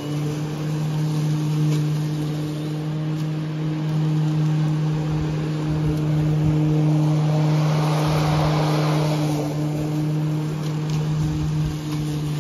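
Makita DLM532 cordless lawn mower running in silent mode while mowing, its electric motor and blade giving a steady hum. A louder rushing noise swells for a couple of seconds around the middle.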